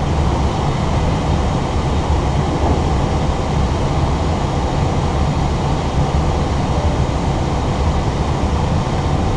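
Steady rushing cabin noise inside an Airbus A320 cockpit in flight on approach, with a low even hum beneath it.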